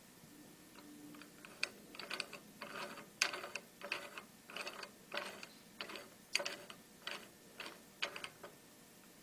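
Small aluminium drill-press vise being wound by its hand knob: a run of clicks and rattles, about two a second, from the threaded screw and the sliding jaw. It starts about a second and a half in.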